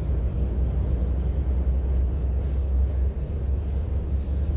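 Low, steady rumble of diesel freight locomotives pulling a train across a steel truss bridge.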